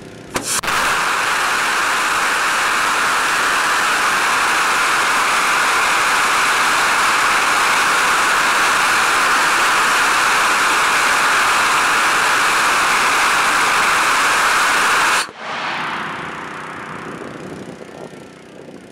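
Additively manufactured (3D-printed) three-chamber aerospike rocket engine hot-firing. It lights with a short crack about half a second in, then runs with a steady, very loud rush of exhaust noise for about fifteen seconds. At shutdown the noise cuts off suddenly and a fading tail dies away.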